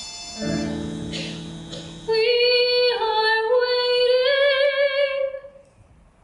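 A woman singing a slow theatre ballad over a low held accompaniment chord. Her voice enters about two seconds in, steps down and back up, and holds a long note with vibrato that fades out about five and a half seconds in.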